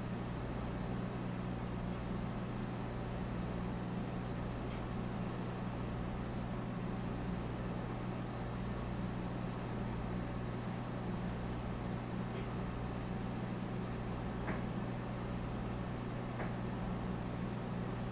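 Steady mechanical hum of running aquarium equipment, with a low throb that pulses a little less than once a second and a couple of faint ticks near the end.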